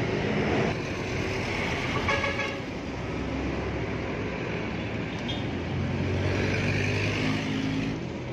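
Roadside traffic noise from passing vehicles, with a short horn toot about two seconds in.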